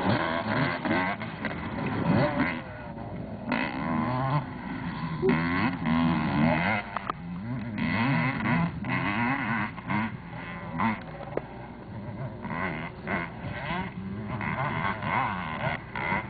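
Motocross bike engines revving up and down, their pitch rising and falling over and over as riders open and close the throttle. The sound drops out briefly a few times.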